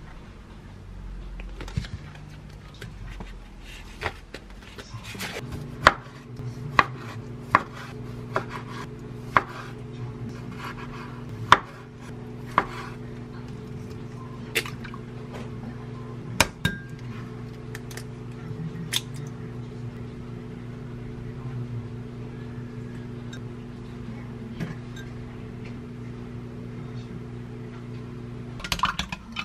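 Microwave oven running with a steady electrical hum that starts about five seconds in and switches off near the end. Over it come a dozen sharp knocks and clinks in the first half, among them eggs tapped open on the rim of a glass mug.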